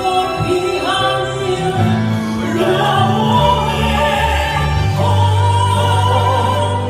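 Korean gospel worship song: a solo singer holds long notes with vibrato over instrumental accompaniment and a steady bass.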